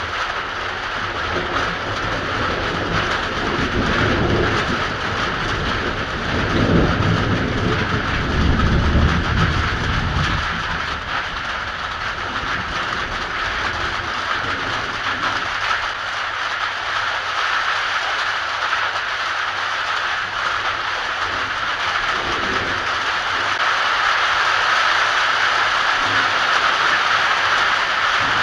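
Heavy rain falling steadily, with a long rolling rumble of thunder in the first ten seconds or so and a fainter rumble a little past the middle.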